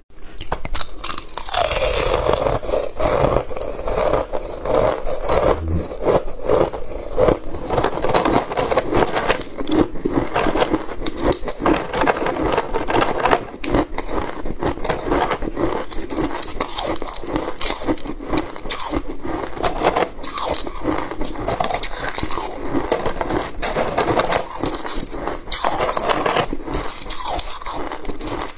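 Hard moulded ice discs cracking and crunching in a dense, unbroken run, with scraping as frozen stacks of discs are pried apart.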